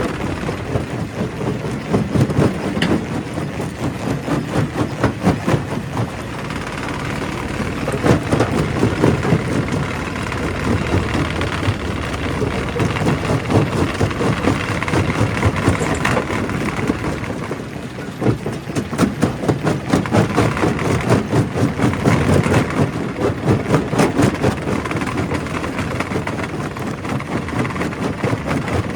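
Primary rock crusher running under load: a steady, loud machinery drone with a dense stream of knocks and cracks from rock being broken, easing briefly about two-thirds of the way through.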